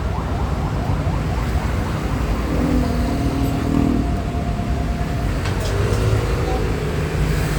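Steady low background rumble, with faint voices at moments.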